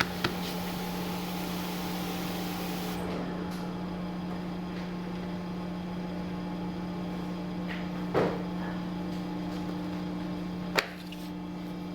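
Steady motor hum of an industrial paper-cutting guillotine, with a hiss that stops about three seconds in. A dull thud comes about eight seconds in and a sharp click near the end.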